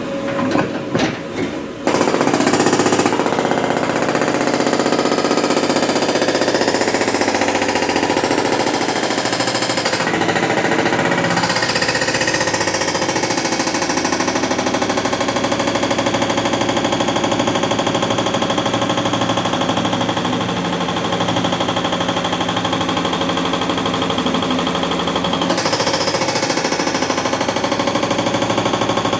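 Hydraulic breaker on a JCB 3DX backhoe loader hammering the road surface: a few separate knocks, then a rapid, steady rattle of blows from about two seconds in that keeps going without a break.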